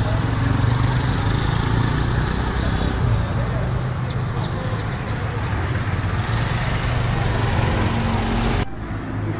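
Steady engine noise from road traffic on the street below, a low engine hum with hiss over it; it drops off suddenly near the end.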